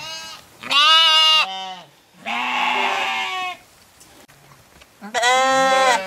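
A mixed flock of sheep and goats bleating: three long bleats, each about a second long, with short pauses between them.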